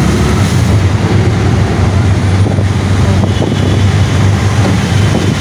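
Steady low wind rumble on the microphone and a running vehicle engine, recorded from a vehicle moving along a flooded road.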